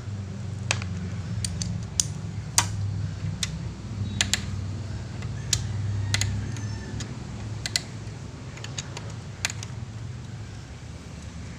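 Irregular sharp clicks and light taps from small tools or parts being handled, over a low steady hum.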